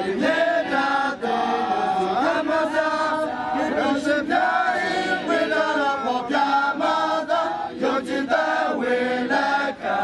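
A choir of voices singing together in sustained, chant-like phrases, with short breaks between phrases.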